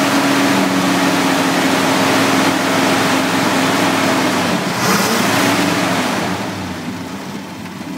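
1966 Chrysler 300's 383 cubic inch big-block V8 running steadily. About five seconds in its note shifts, and it settles to a quieter idle.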